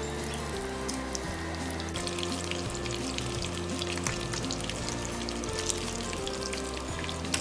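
Tempura-battered whitebait fritters deep-frying in hot oil, a steady crackling sizzle with scattered sharper pops, over background music with sustained low notes.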